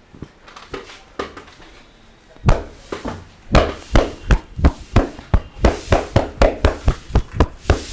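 Percussive massage strokes: the masseur's hands striking the client's body in a fast, even rhythm of sharp slaps, about three a second, starting a couple of seconds in after quieter rubbing.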